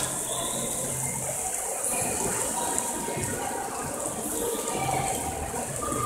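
Small fountain jets splashing steadily into a shallow pool of water.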